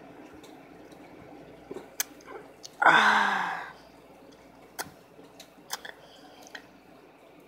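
A person tasting soda: small mouth and lip clicks and swallowing, with one loud, short voiced exhale, falling in pitch, about three seconds in.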